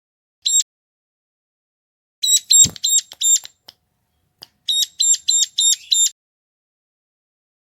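Ciblek gunung, a small prinia, calling: one sharp high chirp, then two runs of about five or six quick, evenly repeated chirps with pauses between them. A dull low thump comes partway through the first run.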